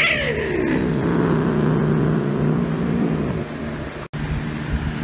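A cat's long, drawn-out yowl, falling steadily in pitch over about two seconds, from an upset cat.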